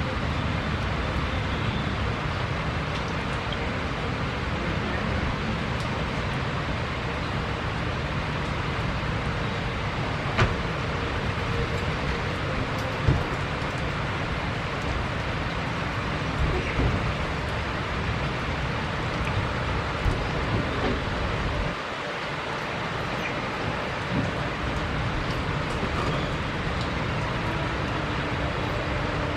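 Steady rumble and hiss of a Boeing 767-300 freighter's jet engines at taxi power, with a few brief knocks.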